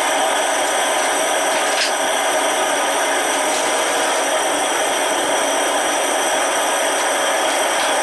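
Homemade propane foundry furnace running, its burner giving a steady, even rushing hiss.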